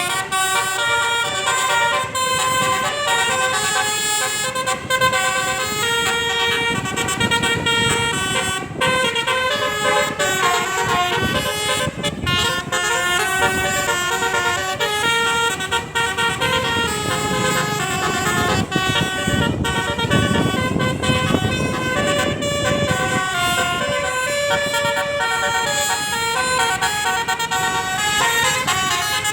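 Buses' multi-tone telolet horns playing continuous melodic tunes, the notes stepping up and down every fraction of a second, over a low rumble.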